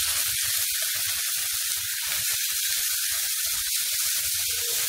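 Chopped onions and tomatoes frying in hot groundnut oil in a frying pan: a loud, steady sizzle with small crackles, flaring up as the tomatoes are tipped in at the start.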